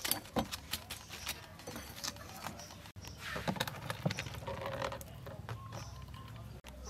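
Light clicks and taps of lemongrass stalks being laid on a bed of coarse rock salt in a wok, then softer handling noises as raw turtle pieces are lifted from a plastic colander.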